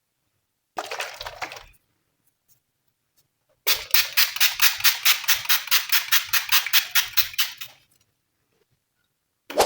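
Glossy slime being worked by hand, giving wet clicks and pops: a short squish about a second in, then a fast run of clicks at about six a second from about four seconds in that fades out, and another run starting at the very end.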